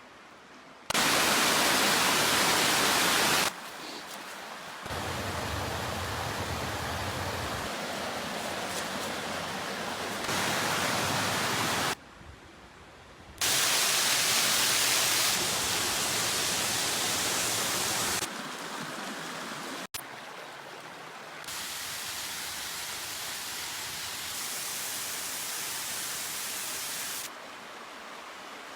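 Rushing water of small waterfalls and brooks, a steady hiss heard in a string of short clips that cut abruptly from one to the next, each at a different loudness.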